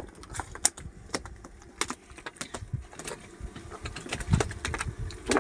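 Irregular light clicks and knocks from catch and tackle being handled on a boat deck, with a couple of duller thumps near the end.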